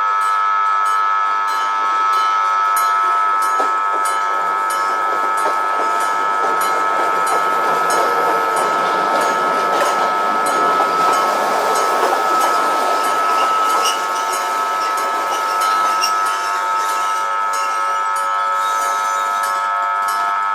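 Electric-bell level-crossing warning bell, its striker hitting a metal gong in a fast, even, continuous ringing. From about four seconds in, a Randen (Keifuku Electric Railroad) tram passes through the crossing, its running noise swelling and then fading away by about sixteen seconds.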